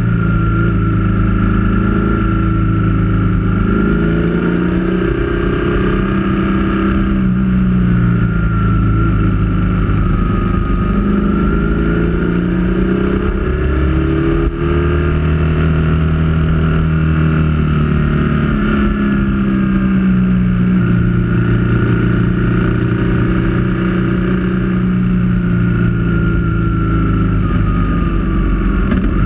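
Motorcycle engine heard from on board while riding, its pitch rising and falling repeatedly with the throttle, over steady wind noise.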